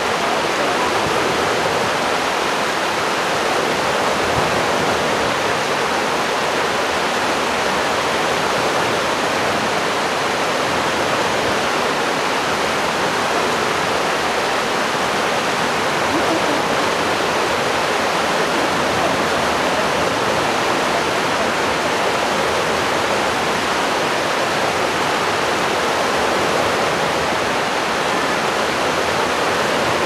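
A babbling spring snowmelt stream: a steady, even rush of flowing water with no breaks.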